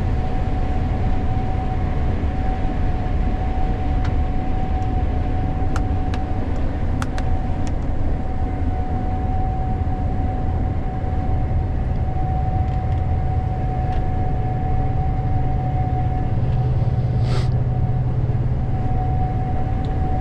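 Gleaner S98 combine running steadily while harvesting corn, heard from inside the cab: an even low rumble with one steady tone over it and a few light ticks.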